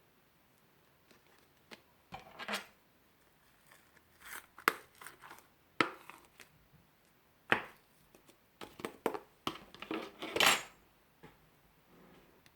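Cutlery clicking and scraping against a dish in short, scattered strokes, the loudest cluster about ten seconds in.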